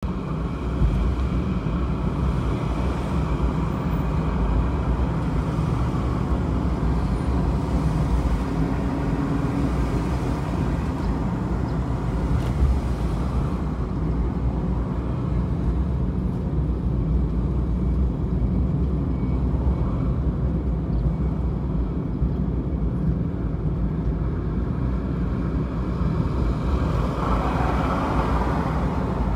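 Suzuki Every kei van driving at city speed, heard from inside: the steady drone of its small three-cylinder engine with tyre and road noise. There is a brief swell of noise near the end.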